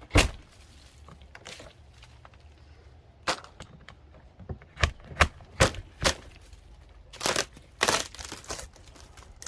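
Sharp knocks and cracks of a tool breaking out rotted, crumbling old wall wood: one loud strike, a few separate knocks, a quick run of blows in the middle, and longer crunching near the end as pieces break away.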